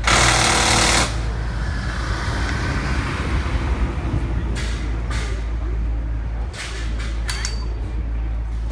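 Rally car passing at speed: its engine loud for about a second, then fading away with falling pitch as it goes down the stage. A few short, sharp cracks follow in the second half.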